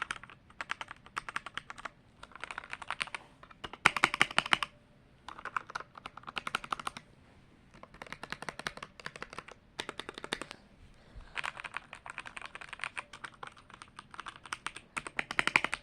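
Snpurdiri 60% mechanical keyboard with red linear switches being typed on: quick runs of clacking keystrokes separated by short pauses.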